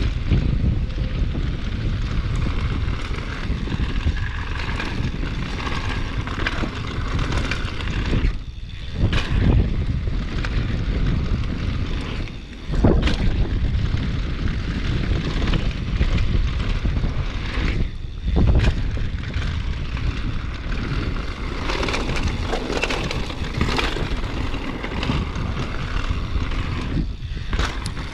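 Wind rushing over the microphone and tyres rumbling down a dirt downhill mountain-bike trail at speed. Several sharp thuds break it, about 8, 13, 18 and 27 seconds in, some right after a brief lull: the bike landing off jumps.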